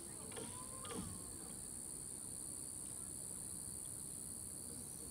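Insects droning in the surrounding trees: a continuous high-pitched buzz that holds steady throughout.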